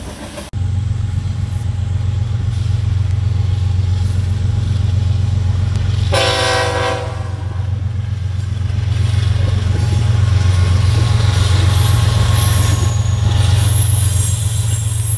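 Diesel freight locomotive running past with a steady deep engine rumble. About six seconds in, its air horn sounds once in a short blast of under a second.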